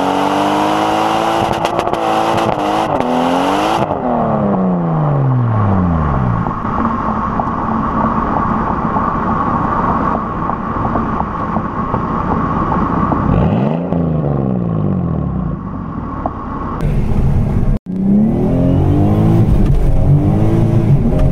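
A swapped 2JZ-GTE twin-turbo straight-six in a Lexus IS300 revving hard under a pull, its pitch climbing and then falling away, then running steadily before a second rise and fall; near the end the engine climbs again under load. The clutch is slipping under the power.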